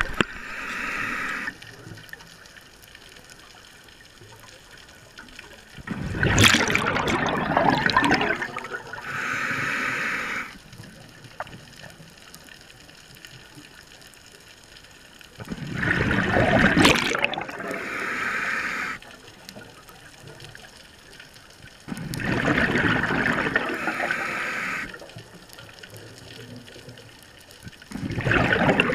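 Scuba breathing through a demand regulator, heard underwater: slow breaths about every six to seven seconds, each a loud bubbling rush of exhaust bubbles paired with a shorter hiss, with quiet gaps between.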